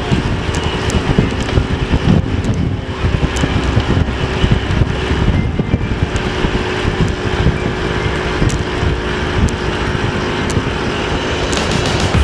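Wind buffeting the microphone of a camera on a road bicycle riding at about 43 km/h, a loud, steady rush with gusty low flutter.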